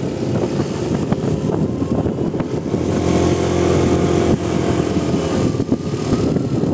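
Motorcycle engine running while riding, with rough rumbling noise from the ride and wind on the microphone. A steadier engine note comes through from about three to four and a half seconds in.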